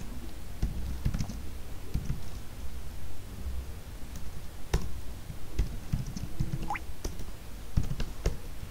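Computer keyboard keys being typed, a scatter of irregular single keystroke clicks with short gaps between them.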